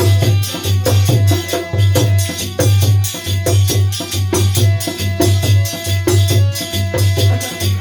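Instrumental break of a Holi folk song: a steady, heavy bass drum beat under rattling percussion and a held melody line.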